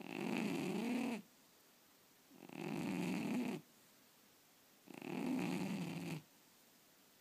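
Sleeping cat snoring: three snores about two and a half seconds apart, each lasting a little over a second, with quiet breaths between.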